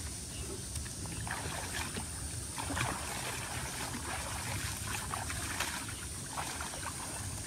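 Shallow pond water sloshing and lapping, with small scattered splashes, as people wade and scoop water with their hands.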